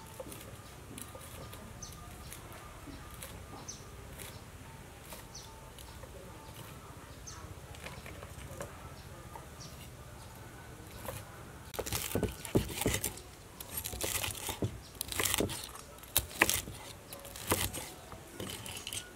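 Cleaver cutting crispy fried pork belly on a wooden chopping board. It is faint at first, then from about twelve seconds in comes a run of sharp, irregular crunches and knocks as the blade breaks through the crisp skin and strikes the board.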